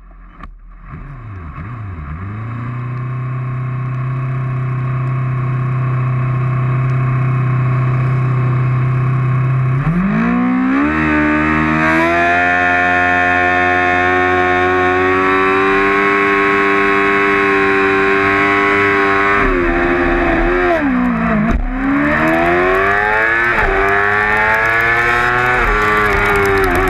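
Onboard sound of a 2008 Yamaha R6's 600 cc inline-four at a race start: idling steadily, then revved up about ten seconds in and held high. Near the end the revs dip as the bike launches, then climb and drop in quick steps as it accelerates and shifts up through the gears.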